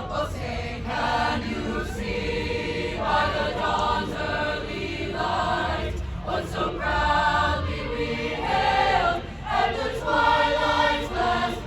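A group of voices singing together in drawn-out phrases, each note held a second or so, over a steady low rumble.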